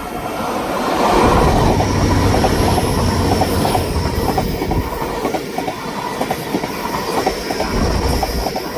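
Train passing close by on the line: a steady rumble that swells about a second in, with a rapid run of wheel clicks over the rail joints.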